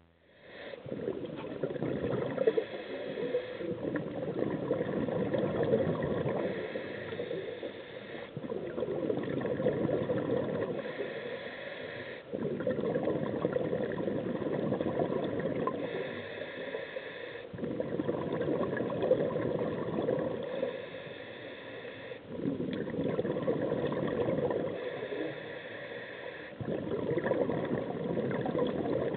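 Underwater scuba breathing through a regulator: each exhale is a long stretch of bubbling gurgle, and each inhale a short hiss between them. The breath cycle repeats about every four to five seconds.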